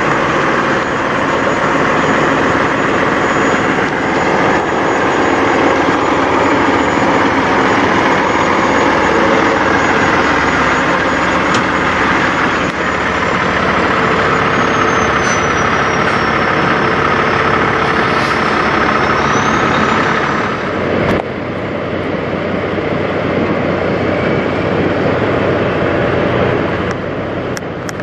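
Semi-truck diesel engine idling up close, a steady loud run. About three-quarters of the way through, the sound switches abruptly to another truck idling, a little quieter.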